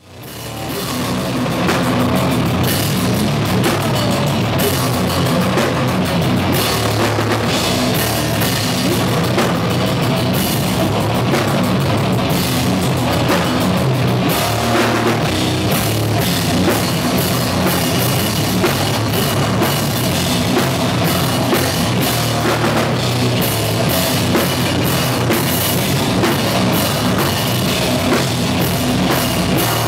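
A hardcore band playing live at full volume: distorted electric guitar over a drum kit with cymbals, fading up over the first second.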